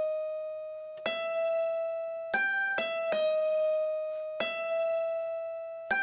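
Background music: slow single sustained notes, each struck sharply and fading away, about one new note every second or so.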